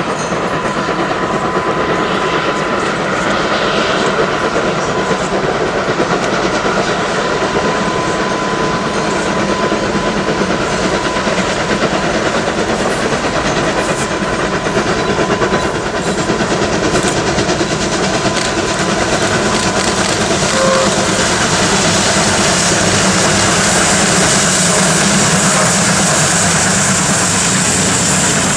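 Two SBB C 5/6 'Elefant' four-cylinder compound 2-10-0 steam locomotives double-heading a train uphill, their exhaust and rolling noise a dense, steady rumble that grows louder as they come closer.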